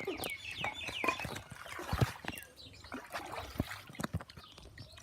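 A bird chirping in a quick series, followed by scattered sharp knocks and light splashing.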